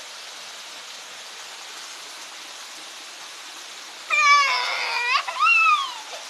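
Steady hiss of rain on wet pavement, with a cat meowing twice about four seconds in: one long, loud meow, then a shorter one that rises and falls in pitch.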